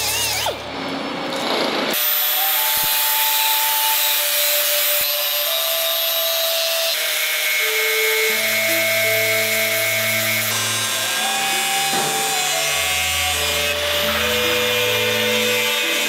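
Power grinders working over the cast surface of a temple bell, a continuous grinding hiss of abrasive disc on metal. Background music with held, changing notes plays over it.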